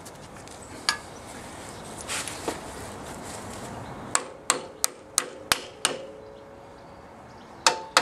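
Copper hammer knocking the greased shock absorber mounting shaft through the wishbone of a Jaguar E-type's rear suspension. One blow comes about a second in, then a run of six quick blows around the middle, each leaving a short metallic ring, and another blow near the end.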